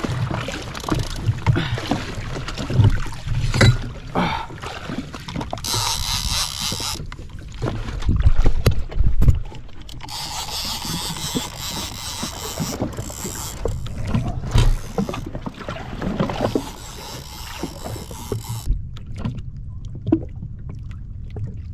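Water sloshing and splashing against the hull of a jet ski, with scattered knocks and clicks and stretches of hissing spray.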